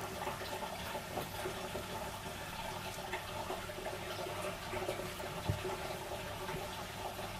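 Steady background hiss with a low hum, and a few faint soft knocks, the most marked about five and a half seconds in.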